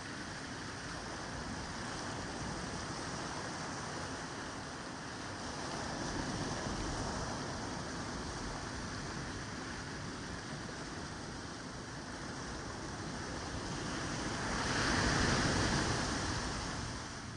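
Ocean surf on a beach: a steady rush of waves, with a louder wave swelling and breaking near the end.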